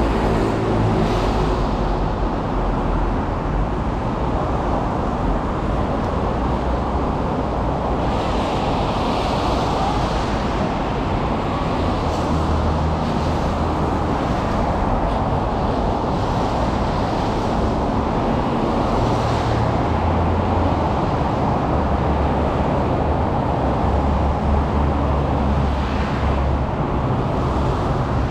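Steady city street traffic: engines running and idling, with the hiss of cars passing every few seconds on wet roads.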